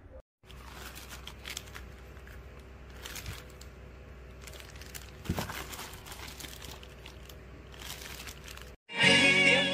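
Plastic wrapping and a cardboard box crinkling and rustling as they are handled, with many small irregular crackles over a steady low hum. Loud music cuts in suddenly near the end.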